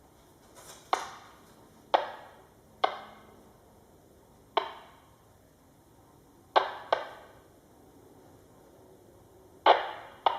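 A series of eight sharp knocks at irregular intervals, each ringing out briefly in a small room, with two quick pairs near the end.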